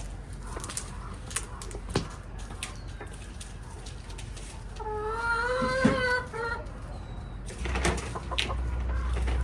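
Backyard hens clucking, with one drawn-out pitched hen call about five seconds in. Scattered sharp clicks and taps sound throughout.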